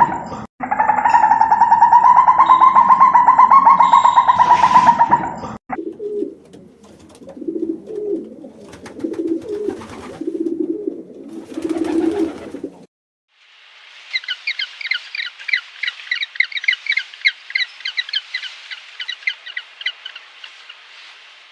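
A loud steady pitched call or tone for the first five or six seconds, then a pigeon or dove cooing in repeated low phrases. A small bird follows with rapid high chirping, several notes a second.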